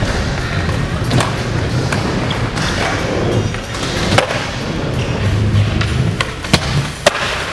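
Skateboard wheels rolling on a smooth concrete floor, with several sharp clacks of the board popping and landing, the loudest a little past halfway and twice near the end.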